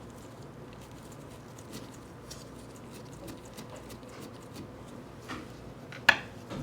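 Small metal lathe parts and tools being handled, with scattered light ticks and clicks and one sharp clink about six seconds in.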